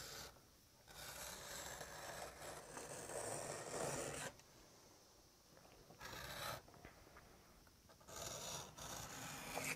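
Utility knife blade drawn through 3 to 4 ounce leather along a metal straightedge, cutting a long thin strip. There are three cutting strokes: a long one of about three seconds that grows louder, a short one about six seconds in, and another near the end.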